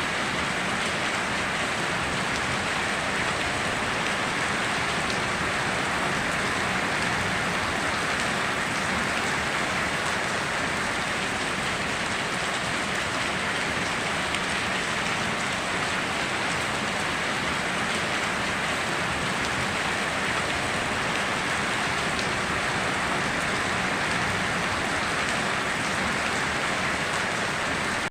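Steady heavy rain falling on foliage and ground, an even hiss with no thunder or breaks.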